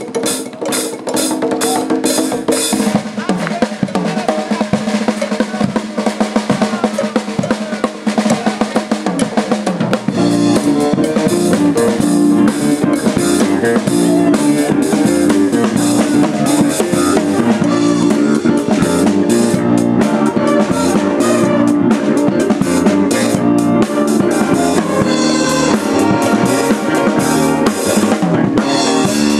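Live band music: a drum kit played busily for about ten seconds, then the full band comes in with brass, including a sousaphone bass line, and keyboard over the drums.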